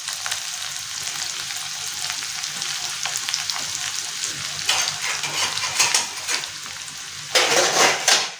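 Finely chopped onion and green chillies frying in hot oil in a stainless-steel kadhai: a steady sizzle that swells louder twice in the second half.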